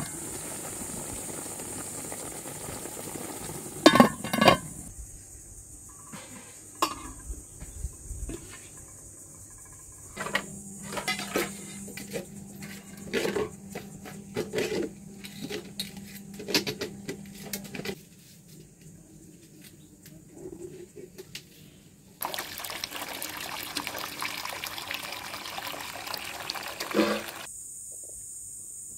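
Metal cooking pots and lids clanking and clattering, with sharp knocks about four seconds in and a run of clatter in the middle. Then, near the end, water runs and splashes from a tap for several seconds as the pots are washed.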